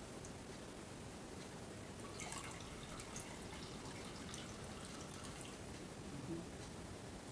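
Faint trickle and drip of almond milk running from a hand-squeezed straining cloth into a glass bowl.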